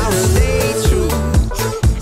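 Upbeat pop music with a steady drum beat about twice a second.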